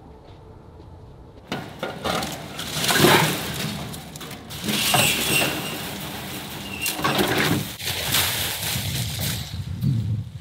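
Rolled welded-wire fencing rattling and scraping as it is pulled out of a pickup bed and set down, starting about a second and a half in, with loud irregular clinks and scrapes of wire.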